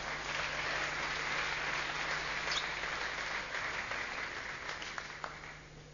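Spectators in a sports hall applauding at the end of a table tennis rally, a steady clapping that dies away near the end.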